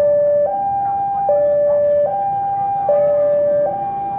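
Railway level-crossing warning alarm sounding a steady two-tone electronic signal, alternating a low and a higher tone about every 0.8 s, warning that a train is about to pass over the crossing.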